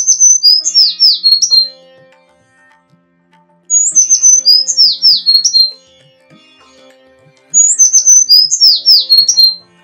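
A bird's song: a loud phrase of quick, high whistled notes sweeping downward, repeated three times about four seconds apart, over faint background music.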